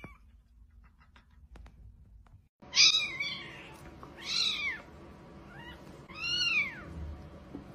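Kitten meowing three times, short high calls about a second and a half apart, each rising then falling in pitch; the first, about two and a half seconds in, is the loudest.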